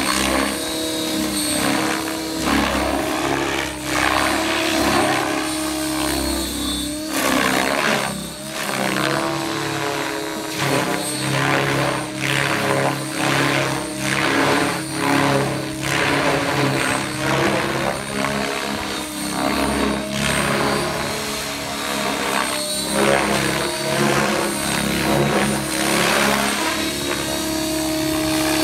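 Blade 700 X electric RC helicopter flying 3D aerobatics: the steady whine of its motor and drive gears, with the main rotor whooshing in repeated surges roughly once a second as it flips and tumbles.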